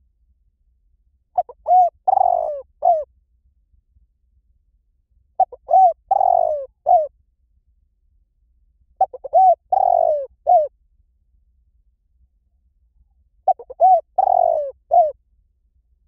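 Spotted dove cooing: four phrases about four seconds apart, each a short run of quick notes with a longer, stronger note in the middle.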